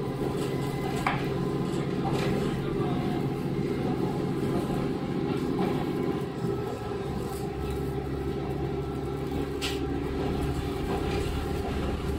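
Onboard running sound of a JR KiHa 40 series diesel railcar: the diesel engine's steady drone under the floor with the rumble of wheels on rail, and a few sharp clicks. About six seconds in, the engine note shifts lower.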